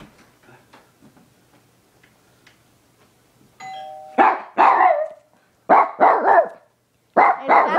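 A doorbell rings a two-note ding-dong, high then low, about three and a half seconds in. A dachshund answers at once, barking in quick bursts of several barks each.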